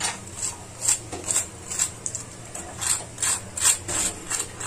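Freshly fried onion samosas crunching and crackling as a hand squeezes and breaks their thin pastry shell: a quick run of sharp crackles, about three a second. The sound of a crunchy and crispy fried crust.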